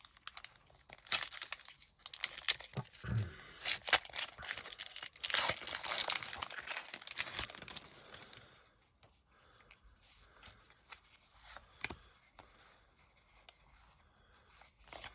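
Foil Pokémon TCG booster pack wrapper being torn open and crinkled for several seconds. After that, quieter handling with a few light clicks.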